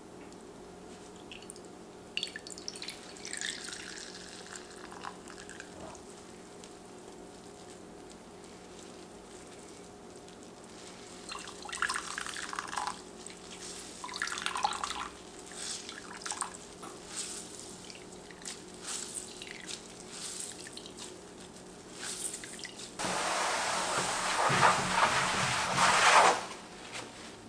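Cucumber juice dripping and trickling into a glass bowl as grated cucumber is wrung out in a cloth, in short irregular spells, then a louder steady rush for about three seconds near the end.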